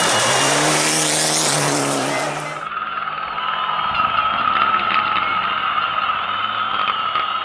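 Mitsubishi Lancer Evolution X rally car passing close at speed on gravel, its engine note falling as it goes by, with tyre noise. About two and a half seconds in, the sound cuts abruptly to a quieter scene with a steady high whine.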